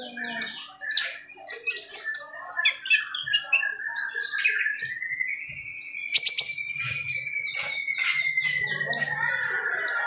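A caged sunbird chirping fast, with many short, sharp, high chips. From about halfway a long, thin whistle runs under the chips, slowly rising and then falling.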